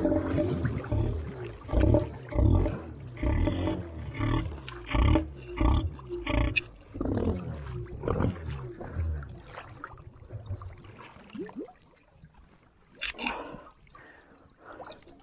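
An engine revving in repeated short surges, which die away after about ten seconds.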